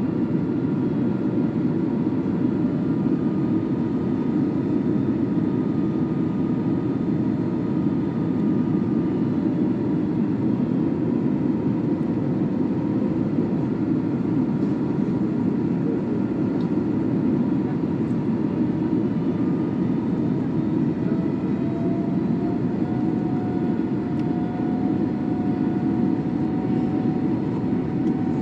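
Steady cabin noise of an Airbus A321neo airliner in flight on approach: a constant low rumble of airflow and engines, with faint engine tones above it, one rising a little about two-thirds of the way in.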